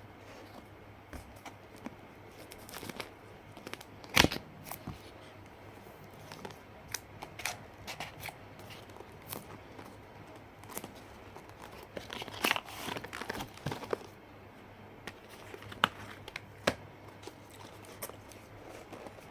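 Phone packaging being torn open and crinkled during unboxing, with scattered sharp clicks and taps of handling. The loudest is a sharp knock about four seconds in, and there is a busier stretch of rustling about two thirds of the way through.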